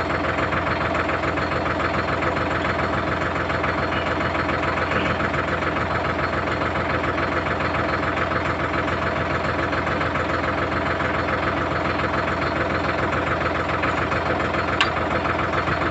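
Sonalika Tiger 55 hp tractor's diesel engine idling steadily, with one sharp click near the end.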